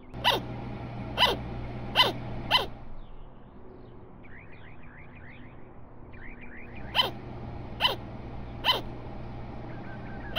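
Sugar glider barking: short, sharp yaps that drop in pitch, four in quick succession at the start and three more about seven seconds in. Runs of fast, faint chirps fall between them.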